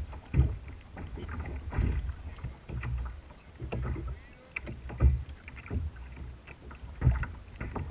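Small waves slapping and lapping against a plastic fishing kayak's hull, with irregular low thumps and short knocks.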